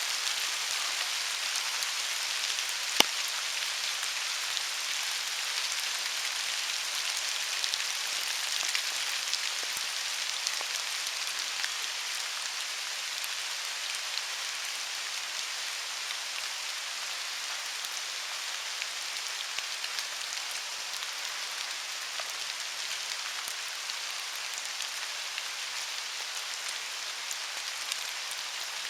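Steady rain falling, an even hiss with scattered small drop ticks. One sharp click sounds about three seconds in.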